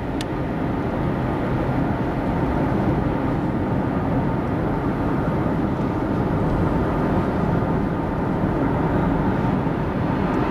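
Steady cabin noise inside a Honda with a 2.0 petrol engine cruising in fifth gear at about 2000 rpm: an even drone of engine and road noise.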